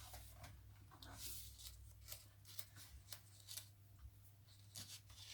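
Faint rustling and light taps of paper and card as junk-journal pages are turned and tucked cards are handled, over a low steady hum.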